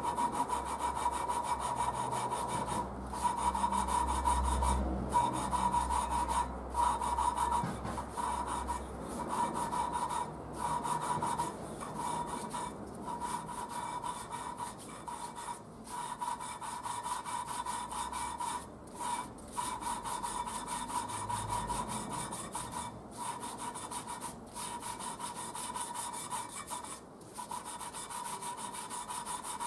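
Triumph Spitfire valve being hand-lapped into its seat in the cast-iron cylinder head with coarse grinding paste. It makes a gritty rasping rub as the valve is twisted back and forth on a suction-cup stick, breaking off briefly every second or few as it is lifted and turned. The grind is much quieter than the earlier hacksaw-like rasp, a sign that the valve and seat are bedding in.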